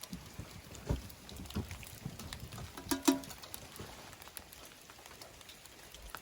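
Wet snow and rain falling and pattering, with a few soft low thumps in the first couple of seconds and a brief sharp pitched sound about three seconds in.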